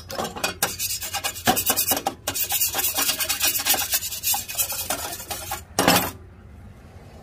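A fast, irregular run of rough scraping or filing strokes by hand on a hard surface. It ends with one louder stroke about six seconds in.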